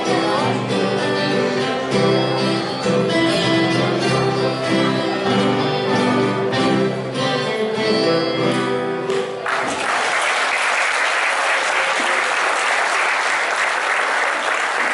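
Ensemble of acoustic guitars playing together, ending the piece about two-thirds of the way through, followed straight away by audience applause.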